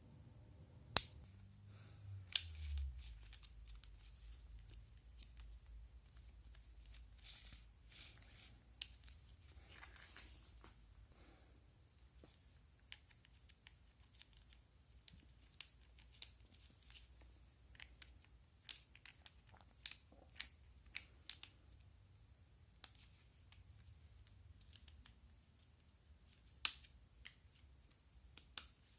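Scattered sharp clicks and taps of small parts being handled, with faint rustling; the two loudest clicks come about a second and two and a half seconds in, and the clicks come more often in the second half.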